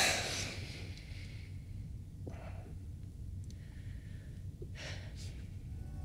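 A person's sharp sigh right at the start, then a few short, quieter breaths.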